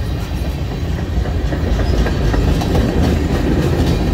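Norfolk Southern freight train's tank cars and boxcars rolling past: a steady, loud rumble of steel wheels on rail, with scattered clicks as the wheels cross rail joints.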